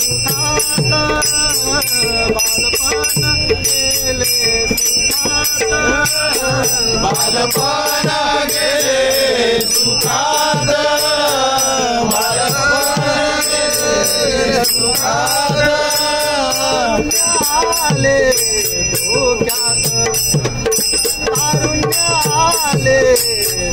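Group of men singing a Marathi devotional bhajan (abhang) together, with small hand cymbals (taal) struck in a steady beat and ringing under the voices.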